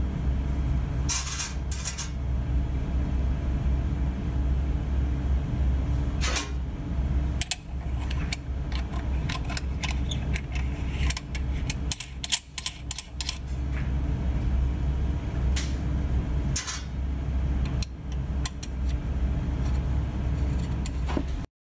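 Steady low hum of a running cabinet fan, with scattered small clicks and clinks from the PDS-1000/He's macrocarrier assembly being handled: a white plastic plate with a threaded brass ring. The clicks come in a quick cluster midway. The sound cuts off suddenly near the end.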